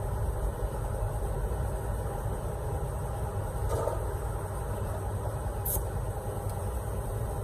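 Steady low rumble of a running motor, with a light clink about halfway through and a brief high hiss near the end as the spray gun and air hose are handled.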